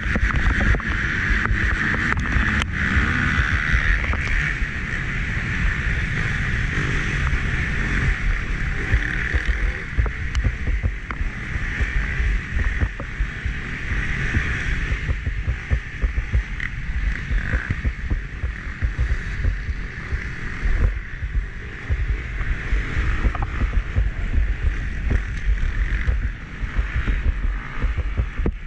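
Onboard action-camera audio of a motocross dirt bike racing: the engine running hard, mostly buried under heavy wind buffeting on the microphone, with frequent sharp clicks and knocks throughout.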